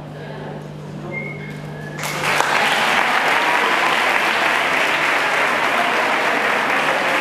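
An audience breaks into loud applause about two seconds in and keeps clapping steadily. Before it, only a low steady hum is heard.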